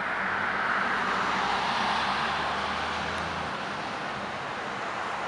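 Cars passing close by on a road: a steady rush of tyre noise with a low engine hum that fades out about three and a half seconds in.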